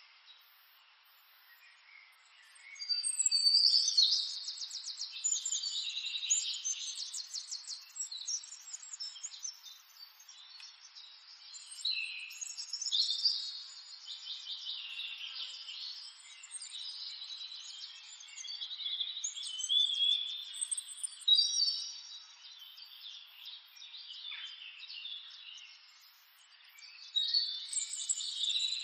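Songbirds chirping and singing, several high calls and rapid trills overlapping, coming in clusters that swell and fade.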